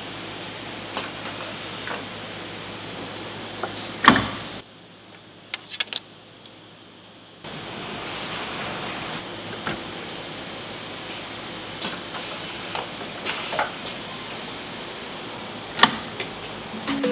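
Steady machine-shop hum with scattered clicks and knocks of tool handling and of the sliding door on a DMG Mori DMU 50 five-axis CNC mill, during a tool change. A sharp knock about four seconds in is the loudest. The hum drops out for a few seconds soon after and then returns.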